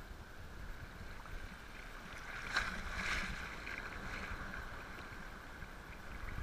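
Wind rumbling on the microphone over water sloshing in shallow surf around wading legs, with a louder splash about two and a half seconds in.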